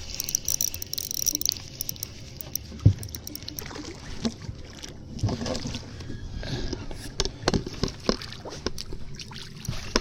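Knocks, clicks and rattles of fishing gear being handled in a boat, with one sharp thump about three seconds in.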